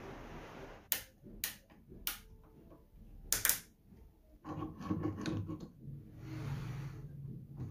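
Several sharp clicks and knocks from a homemade wooden table saw fence and its bar clamp being worked, the loudest about three and a half seconds in. Then, from about halfway, a longer scraping rub as the wooden fence slides along its plywood front rail.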